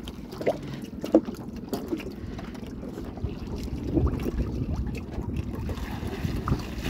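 Low wind rumble on the microphone over water around a small boat, with scattered light knocks and a few short faint blips.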